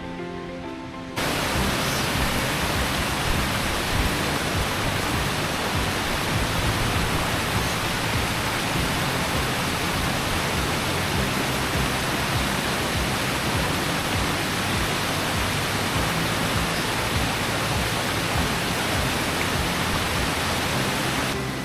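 Waterfall rushing: a loud, even wash of water noise that cuts in suddenly about a second in, with background music faintly underneath.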